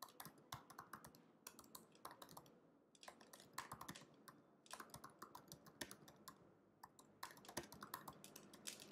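Faint typing on a laptop keyboard: quick, irregular key clicks in short flurries with brief pauses between them.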